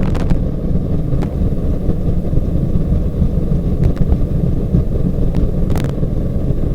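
Boeing 737-800 decelerating on the runway after touchdown: a loud, steady low rumble from its CFM56 engines in reverse thrust and the wheels rolling, with a few sharp knocks scattered through it.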